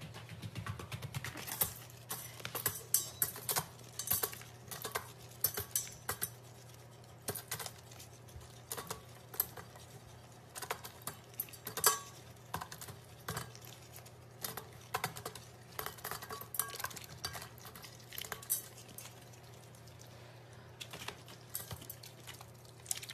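Irregular light clicks and clinks, several every second, over a steady low hum.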